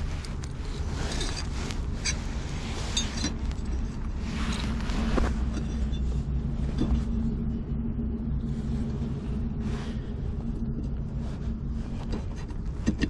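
An engine running steadily as a low, even hum, with scraping and crunching in the dirt during the first five seconds or so and a few sharp knocks.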